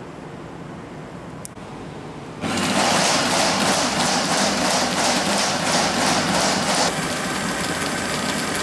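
Electric drum drain-cleaning machine (Populo PDCA-30) switching on about two and a half seconds in, its motor spinning the drum with a fast rhythmic rattle as the steel cable is retracted through the auto-feed unit. About seven seconds in, it settles into a quieter, steadier whine.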